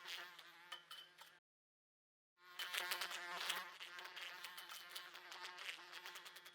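Housefly buzzing and repeatedly bumping against window glass, with quick sharp taps through the buzz. The sound cuts out completely for about a second near the start, then comes back louder.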